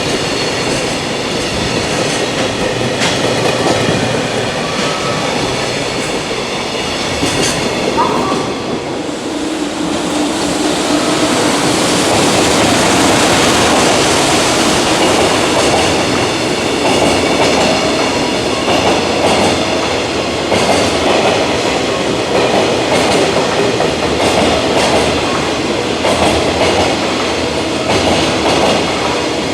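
JR Freight container train rolling past, with continuous wheel-on-rail noise, clattering over rail joints and high steady ringing from the wheels. It grows loudest about a third of the way through and stays strong to the end.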